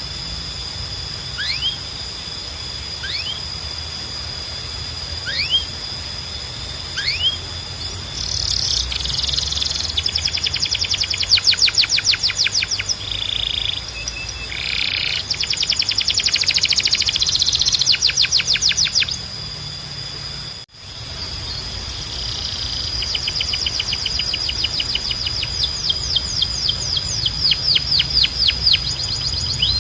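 Domestic canary singing: single rising whistled notes about every second and a half, then fast rolling trills of rapidly repeated notes. The song breaks off briefly about two-thirds of the way through, and the trills then resume.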